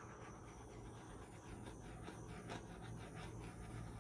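Faint steady hiss of a small handheld torch flame played over wet acrylic pour paint to bring up cells and bubbles.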